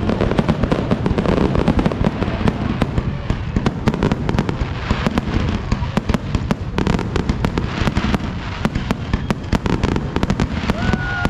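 Fireworks show in a dense barrage: a rapid, unbroken run of bangs and crackling reports over a continuous low rumble.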